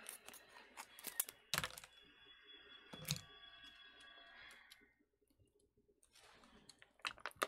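Foil MRE pouch being snipped with scissors and pulled open by hand: a run of faint crinkles and clicks with two sharper cracks about one and a half and three seconds in, a brief pause about five seconds in, then more crinkling.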